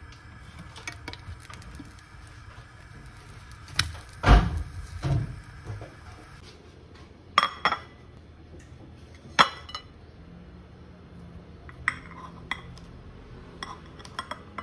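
Wooden spoon and fork knocking and scraping in a nonstick frying pan over a steady sizzle as a pancake is flipped, with two heavy knocks about four and five seconds in. Then the pan clinks twice against a ceramic bowl as the pancake is slid out, and kitchen scissors snip through it a few times near the end.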